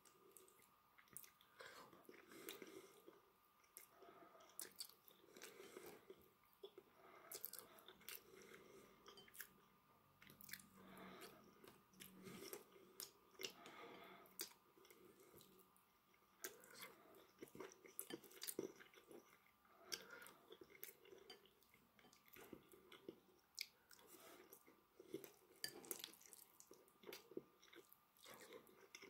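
A person chewing a mouthful of rice and meat close to the microphone, quietly, with many small wet clicks and smacks of the mouth.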